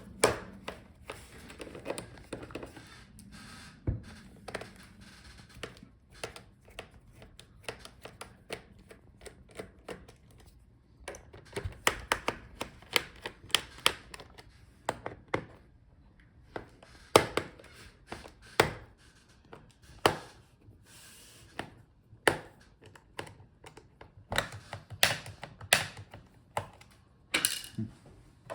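Irregular sharp clicks and light taps, some in quick clusters, of a screwdriver working the screws out of a Dell G15 5515 laptop's plastic bottom case.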